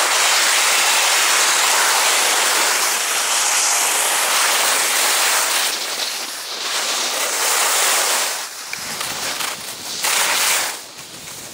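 Skis sliding and scraping over hard-packed groomed snow, a steady hiss that starts to dip and swell after about eight seconds, with low wind rumble on the microphone joining in at that point.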